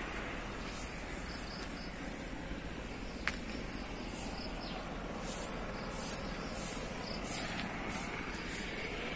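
Insects calling: a steady high-pitched whine with short high chirps repeating about once or twice a second, and a single small click about three seconds in.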